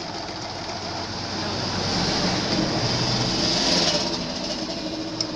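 Jaguar S10-J sewing machine running and stitching. It grows louder about two seconds in and eases off just before four seconds. A short click comes near the end.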